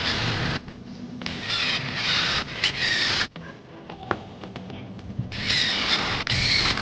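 Wood being rubbed down by hand with an abrasive tool in a series of scraping strokes, each half a second to a second long, with a pause of about two seconds in the middle.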